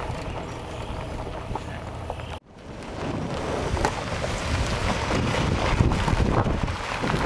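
Ford Ranger pickup truck driving, a steady rumble of engine and road noise with wind buffeting the microphone. The sound cuts out for an instant about two and a half seconds in, then picks up again.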